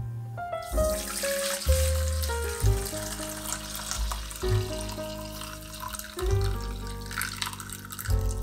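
Bonito dashi broth poured from a saucepan through a fine mesh strainer into a stainless steel bowl: a steady splashing trickle of liquid that starts just under a second in, over background music.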